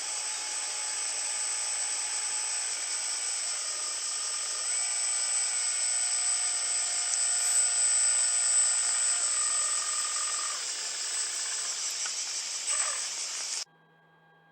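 RC model jetfoil running, heard from its onboard camera: a steady high hiss with a high whine, and lower motor tones that step up and down in pitch. It cuts off suddenly near the end, leaving a faint hum.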